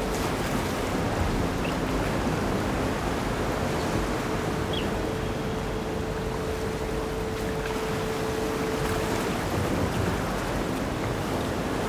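Electronic ambient noise music: a dense, even rush like surf, with a steady held tone that fades out about nine seconds in and a few faint high chirps.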